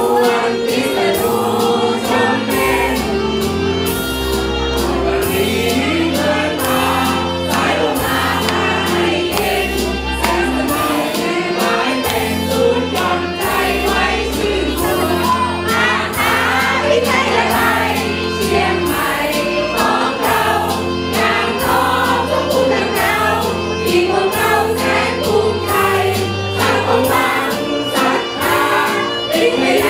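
Music with many voices singing together over a steady beat and bass line.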